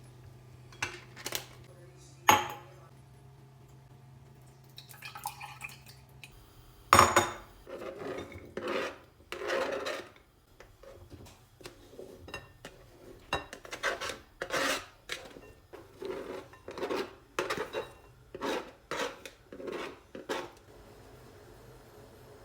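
Kitchen utensils on dishes: a few light clinks, a sharp knock about seven seconds in, then a long run of repeated scraping strokes of a utensil against a dish, about two a second, stopping near the end.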